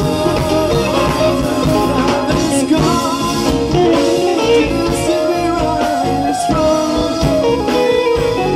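A band playing an instrumental passage of a soft rock ballad, with guitar to the fore over bass and drums.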